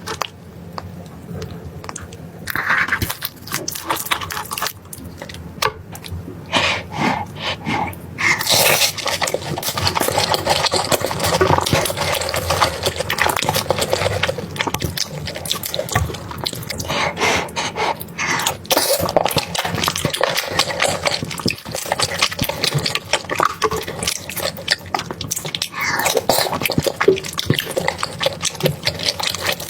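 Water running and splashing at a kitchen sink, with many small knocks and clicks of things being handled in it.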